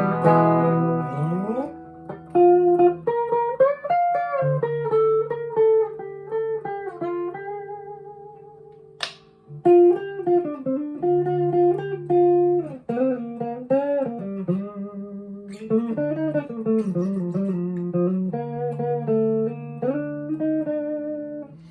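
Jackson electric guitar played clean through a Fender Mustang LT25 amp with no effects, gain, bass and treble at 12 o'clock: a ringing chord fades out, then single-note lead lines with bends and vibrato. A sharp click sounds about nine seconds in.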